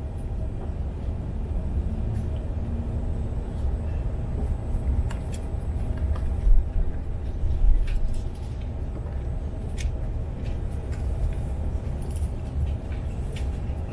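Steady low rumble of an Airbus A330 passenger cabin on the ground at pushback, with scattered light clicks and two louder low bumps a little past the middle.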